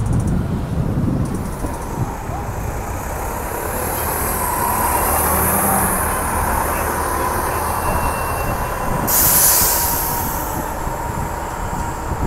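Diesel city buses, among them a high-floor articulated New Flyer D60HF, passing and pulling away. Their engines run under a steady whine, with a short burst of air hiss about nine seconds in.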